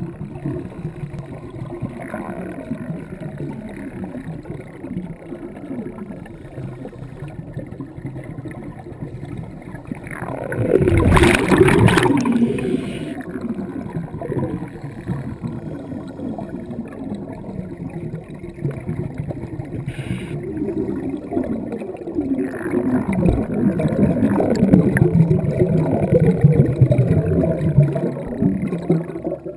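Scuba regulator exhaust bubbles gurgling and rumbling, heard underwater. A loud rush of bubbles comes about eleven seconds in, and a longer stretch of heavier bubbling follows near the end.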